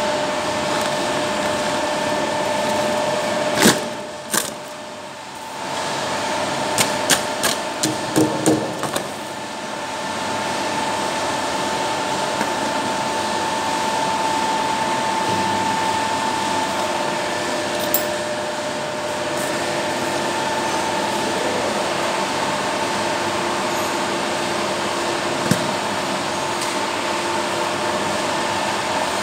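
Steady mechanical hum with several steady tones, from running machinery, with a cluster of knocks and clicks and plastic rustling as hydraulic motors are handled in cardboard boxes, mostly between about 4 and 9 seconds in.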